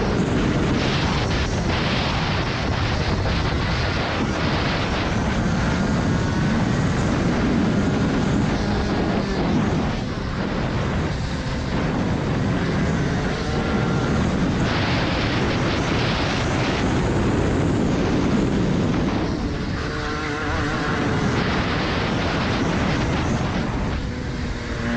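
Rotax Max Senior 125 cc single-cylinder two-stroke kart engine running hard at racing speed, heard from the kart itself. Its note falls and climbs again as the kart brakes and accelerates through corners, with short dips about ten seconds in, about twenty seconds in and again near the end.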